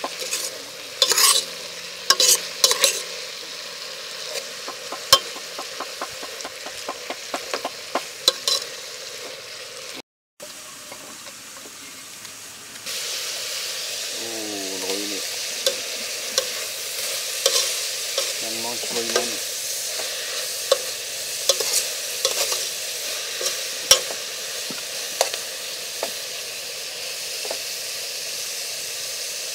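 Food frying and sizzling in a pan, with a metal utensil stirring it and clacking against the pan again and again.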